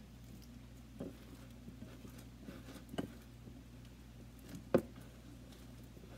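Homemade fluffy slime (glue and shaving cream set with contact solution) being kneaded and pressed by hand in a glass bowl: a few short, sticky smacks and squelches, the loudest about five seconds in. The slime is still sticky and needs more contact solution.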